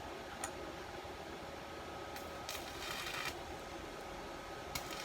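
Stick-welding arc from a Makita inverter welder crackling in two short bursts, about two seconds in for roughly a second and again just before the end, over a steady machine hum with a faint high whine.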